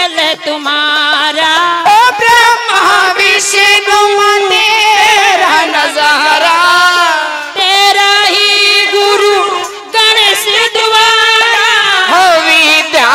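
Live Haryanvi folk devotional song, amplified through a PA: a woman sings a wavering, ornamented melody over a steady held accompanying note, with a brief break near the end.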